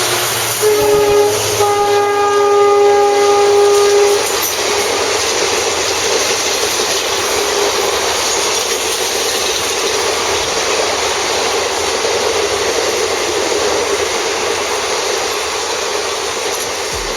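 WDP-4B diesel locomotive's horn sounding one held chord of a few seconds as the express runs through at speed. It is followed by the steady rush and clatter of the train's coaches passing.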